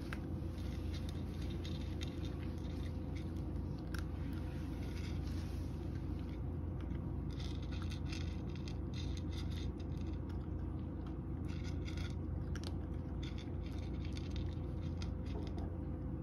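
A cat chewing a snack from a tray: small crunching and clicking bites that come thicker from about six seconds in, over a steady low hum.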